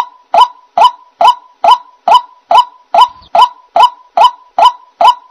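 White-breasted waterhen calling 'ruak ruak': a steady run of short, identical notes, a little over two a second.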